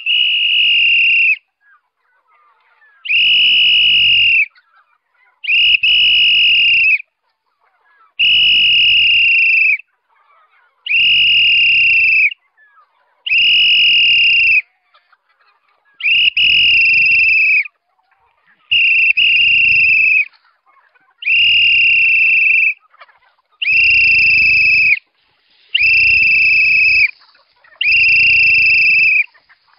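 A whistle blown in long, even blasts, each held for about a second and a half at one high pitch, about a dozen times at a steady pace. It is a feeding call that brings a flock of free-range chickens running.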